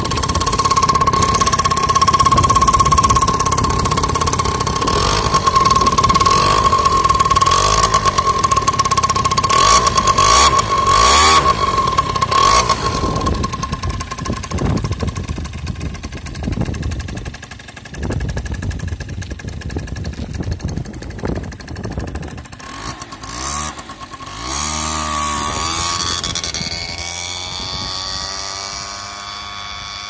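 Wangye CBC 50 scooter's 50cc two-stroke engine running through its chrome silencer, revved hard several times in the first half, then blipped more quietly. Near the end it pulls away, the engine pitch rising and falling as it fades into the distance.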